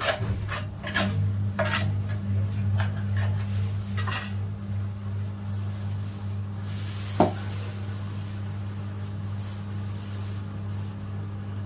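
Scraping and clinking of a tool against the metal strainer basket of an old clogged floor drain as the dirt is cleared out, with plastic bag rustling and a sharp click about seven seconds in. A steady low hum runs underneath.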